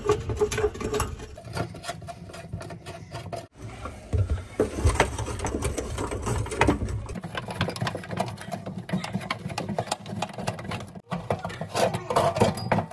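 Old kitchen faucet's large mounting nut being spun off its threaded shank by hand under the sink: a dense run of small scraping clicks over a low rumble of handling.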